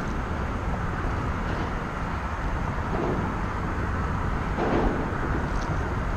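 Wind buffeting an action camera's microphone on open water, a steady low rumble with the chop around a kayak, and one brief louder rush about three quarters of the way through.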